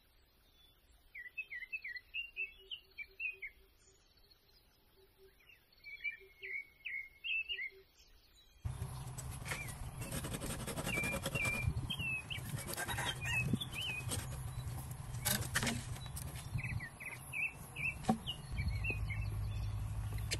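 Small birds chirping in short runs of quick notes. About eight seconds in the background turns noisier and a few sharp knocks come as a knife cuts into a green bamboo pole.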